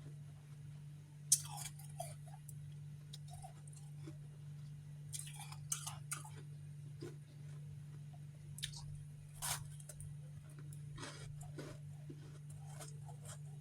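Chewing and crunching on refrozen freezer frost chunks, with irregular crisp crunches, the sharpest about a second in and a close run of them around the middle. A steady low electrical hum runs underneath.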